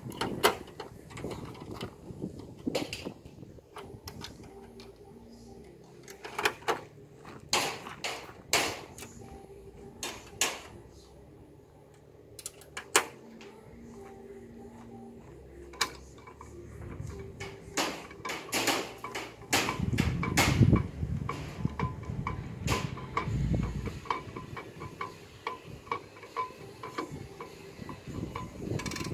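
Scattered sharp clicks and clunks of metal latches and fittings being worked on a camper trailer's steel body, one at a time with short gaps, and a low rumble in the later part.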